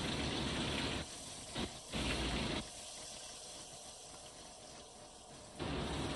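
Breaded fish pieces frying in hot oil in a pan, a steady sizzle with louder spells of sizzling in the first second, briefly around two seconds in, and near the end as the pieces are turned in the pan.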